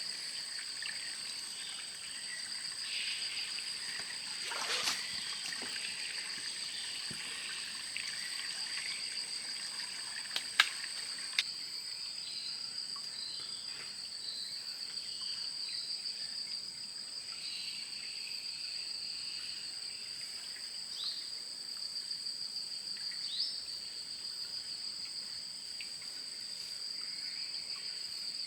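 Steady high-pitched chorus of forest insects, two shrill tones held without a break, with two sharp clicks about ten and eleven seconds in.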